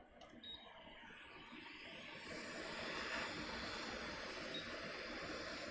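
Hot air rework station blowing a steady hiss over a MacBook logic board's ISL charger chip under flux, heating it to lift it off. The hiss grows louder over the first few seconds and then holds.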